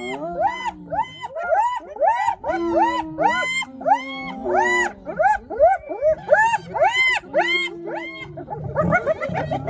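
A group of spotted hyenas calling around a lion kill: a rapid, overlapping run of short calls, each rising and then falling in pitch, about two or three a second. Near the end they thicken into a rougher, denser clamour.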